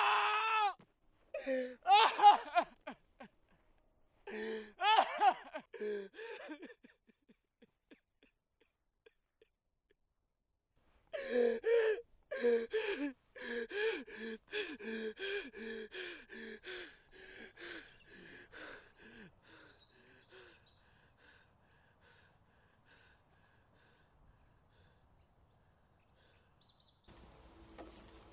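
A man's voice crying out in a few long, pitched wails, then a long run of heaving, wordless vocal outbursts, about two a second, that fade out.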